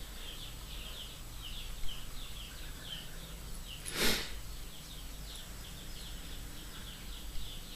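A small bird chirping steadily, short quick downward chirps about four or five a second, with one short breathy burst about four seconds in.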